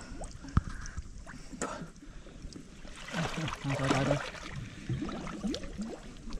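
Water sloshing and gurgling, with several sharp knocks and a louder, low-pitched stretch from about three to four and a half seconds in.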